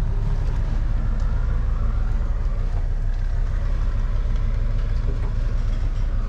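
A vehicle engine running steadily: an even, low drone.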